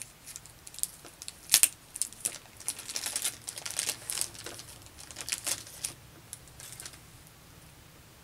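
Thin clear plastic wrapping crinkling as it is worked and pulled off a doll's arm: a run of quick crackles, the loudest about a second and a half in, that stops about a second before the end.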